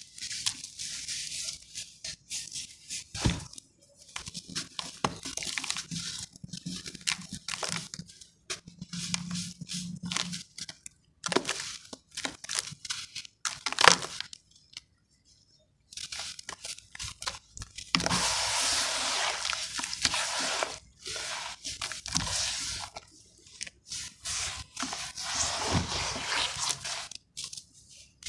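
A wet lump of sand cement squeezed and crumbled by hand over a basin of water: irregular bursts of gritty crunching, with a silent pause of about two seconds around the middle.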